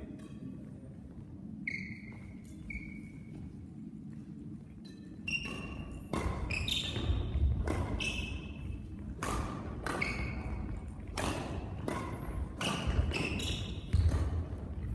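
Badminton rally: rackets smacking the shuttlecock, court shoes squeaking on the floor and feet thudding as players lunge. A couple of short squeaks early on, then from about five seconds in the hits, squeaks and thuds come thick and fast, echoing in the hall.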